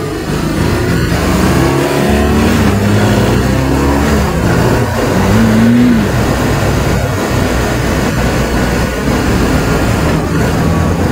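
Motorcycle engine pulling away and accelerating, its pitch climbing and dropping back about twice as it shifts up, over steady wind rush.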